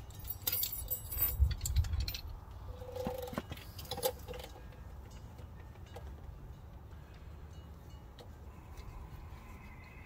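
A metal tool scraping and clinking against a brake caliper, knocking off built-up dirt and rust, with two sharper ringing taps about three and four seconds in. After that only a faint low hum remains.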